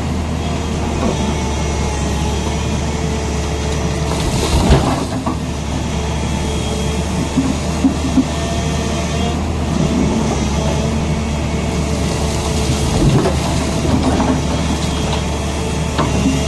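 Tata Hitachi excavator's diesel engine running steadily, with a few sharp metallic knocks, the loudest about a third of the way in.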